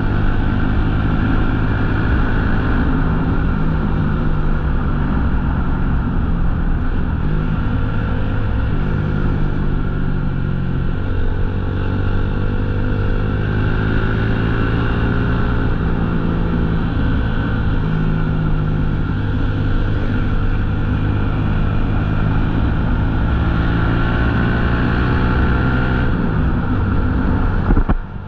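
Motorcycle engine running under way, its pitch climbing and dropping several times with throttle and gear changes, over a steady rush of wind noise.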